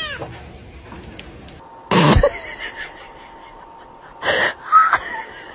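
A dog sniffing hard at a person's foot: three loud, short sniffs, one about two seconds in and two more close together near the end.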